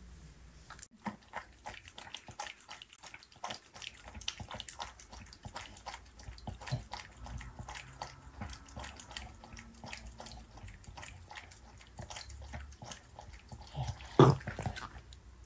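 A Bichon Frise lapping from a raised bowl: a quick, irregular run of wet laps and clicks. One louder sudden sound comes near the end.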